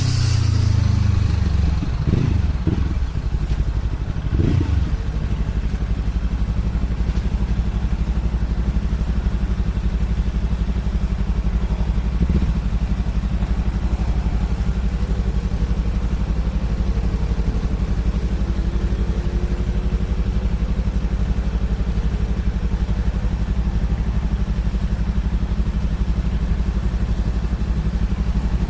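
Yamaha R3's 321 cc parallel-twin engine, breathing through a slip-on exhaust tip without its dB killer. The revs drop away, a few short throttle blips come in the first five seconds, and then it settles to a steady idle.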